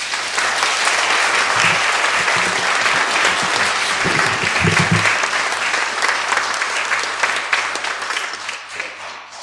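Audience applauding at the end of a song, starting abruptly and dying away near the end.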